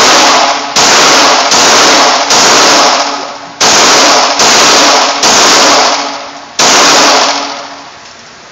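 Pistol shots at an indoor range, about seven of them, roughly a second apart, each followed by a long echoing reverberation. The firing stops about seven seconds in and the last echo dies away.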